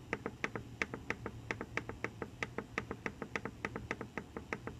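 Rapid, even clicks, about six a second, from the button panel of an automatic pet food feeder as its time button is worked to step the feeding-time setting forward.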